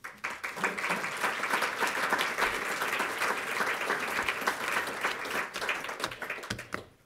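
Audience applauding, a dense patter of many hands clapping that builds quickly and then fades out near the end.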